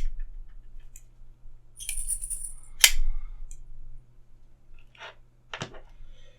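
Reassembled Hoo V2 folding knife being handled: a sharp metallic click at the start, a brief metal-on-metal jingle about two seconds in, another sharp click a little after, and two fainter clicks near the end.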